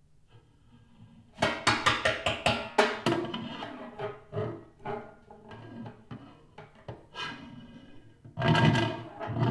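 Snare drum played with drumsticks in a contemporary piece. After a near-quiet start, a quick flurry of sharp strokes comes about a second and a half in. Scattered softer strokes follow, then a loud dense swell near the end.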